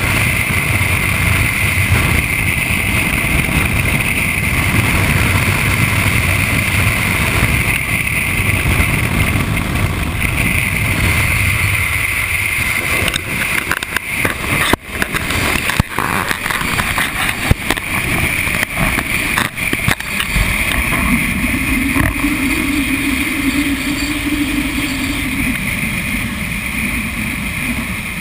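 Wind rushing over a motorcycle-mounted camera at highway speed, with the bike's engine and tyre noise underneath. A few brief crackles come around the middle, and a low engine tone rises and falls over several seconds in the second half.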